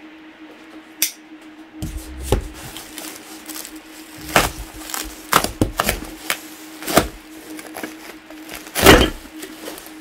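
Packed box being cut and pried open with a knife: a run of sharp cracks and knocks, the loudest about nine seconds in, over a steady low hum.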